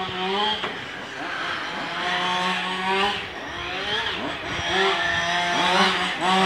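Engines of small racing cars lapping a track, revving up repeatedly and dropping back as they accelerate and change gear. A steady low hum runs underneath.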